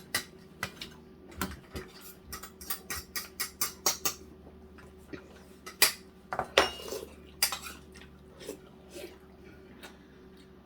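Eating utensils clinking and scraping against bowls and plates during a meal: a scattered run of short, sharp clinks, busiest in the first half, with a few louder strikes a little past the middle.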